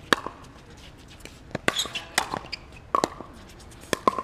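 Pickleball rally: solid paddles striking the hollow plastic ball, a series of sharp pops with a short ringing tone, roughly one a second and a quick double near the end.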